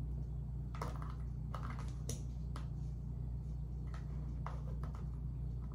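Light, irregular clicks and taps, about seven in all, as fingers and long nails pick chopped onions out of a plastic food container and drop them into a pot, over a steady low hum.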